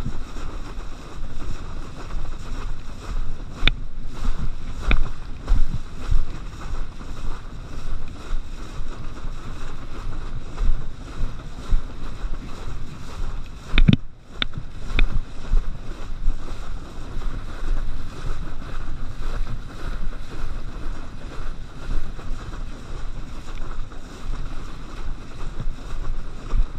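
Wind buffeting the microphone and water rushing beneath a kneeboard towed across a boat's wake, with a few sharp knocks as the board hits the chop.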